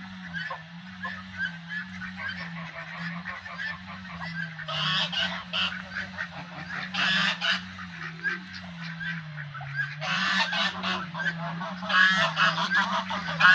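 A flock of domestic geese honking continuously, with louder bursts of honking several times, over a steady low hum.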